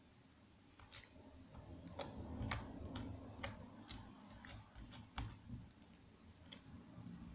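Cloud slime squeezed and worked by hand, giving irregular small clicking pops over a soft low rumble of handling. The pops come at uneven intervals, and the sharpest is a little past the middle.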